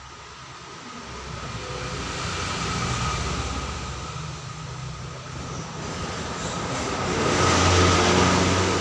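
Rumble of a passing vehicle, swelling up about a second in, easing off midway and growing loudest near the end.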